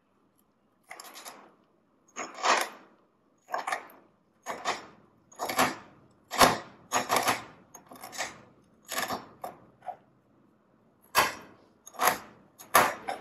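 Chef's knife chopping on a stainless steel worktop, breaking a tortilla chip into crumbs: a string of irregular metallic knocks and crunches, with a short pause about ten seconds in.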